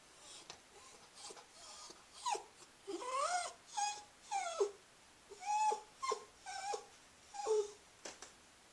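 Cairn terrier whining: faint at first, then from about two seconds in a string of roughly nine short, high whimpers whose pitch slides up and down. This is her habitual whining after eating.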